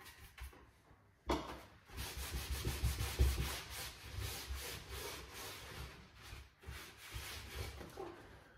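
Rapid back-and-forth rubbing strokes working wax into a painted, paper-covered wooden furniture surface, starting about a second in and running on in a quick, even scrub until near the end.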